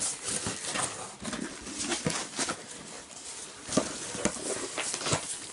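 Cardboard box being opened and handled: flaps and inner cardboard rustling and scraping, with a few sharp cracks and clicks of the cardboard.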